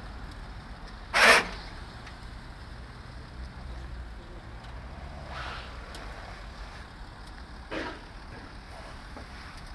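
Audi Q7 SUV running at low speed as it crawls over a tilting ramp, a steady low rumble. Three short sharp noises cut through it, the loudest about a second in, weaker ones later on.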